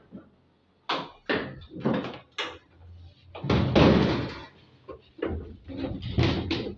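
Knocks and bumps of a washing machine cabinet being set down and shifted by hand, several short bangs with one longer, louder clatter about three and a half seconds in.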